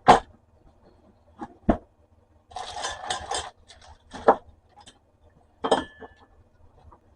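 Scattered metallic clinks and knocks from handling the parts of an antique manual typewriter and tools, with a short burst of clatter in the middle. One knock past the middle rings on briefly.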